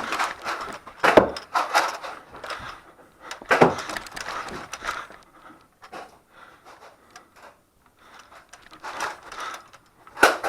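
Hard knocks and clatter: two loud sharp knocks about one and three and a half seconds in, each with a rattle of smaller clicks, then scattered quieter clicks and one more sharp knock near the end.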